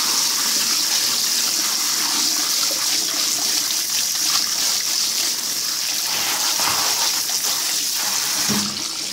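Hot water running steadily from a tap onto a waterproof phone held in the stream, easing slightly near the end.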